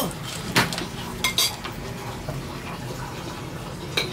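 Dishes and eating utensils clinking now and then during a meal, a few sharp clinks about half a second in, around one and a half seconds in, and near the end.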